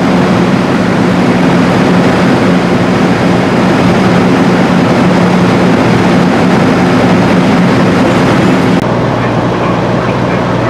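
A large engine running steadily: a constant low hum under a hiss. About nine seconds in the sound changes suddenly to a lower hum.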